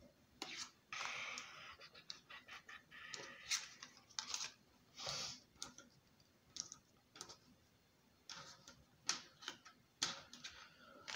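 Tarot cards being picked up off a hard tabletop and gathered into a stack: a scattered run of soft clicks and taps, with a few brief sliding swishes of card against card.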